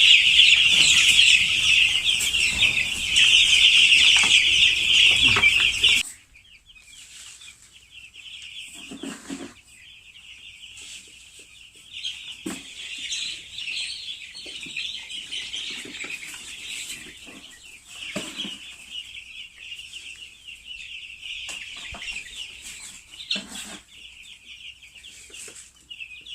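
A flock of five-day-old broiler chicks cheeping in a dense, high-pitched chorus. It is loud for about six seconds, then cuts suddenly to a quieter chorus, with a few soft knocks scattered through it.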